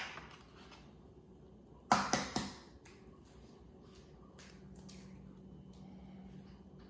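Eggshell cracking: a sharp tap at the start, then a short cluster of sharp cracks about two seconds in as an egg is broken on a bowl's rim. Faint clicks of shell follow while the yolk is passed between the shell halves to separate it from the white.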